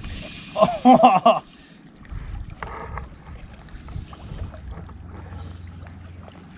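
A man's short exclamation about a second in, then low water and wind noise at the water's edge.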